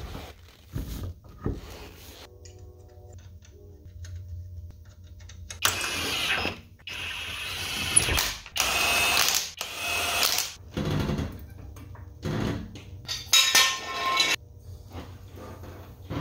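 Impact wrench driving lug nuts onto a car wheel in several bursts of one to two seconds, with short knocks from the wheel being fitted between them.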